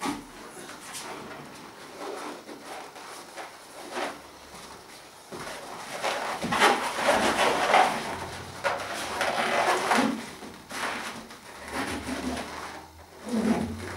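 Latex balloons rubbing and squeaking against one another as a cluster of five is handled and twisted onto a wire frame. The handling is irregular and is busiest and loudest in the middle of the stretch.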